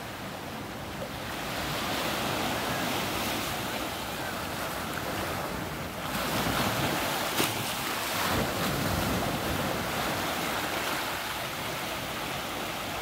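Small ocean waves washing in over black volcanic rocks at the shoreline, the surf hissing steadily and surging louder twice in the second half. One sharp click a little past halfway.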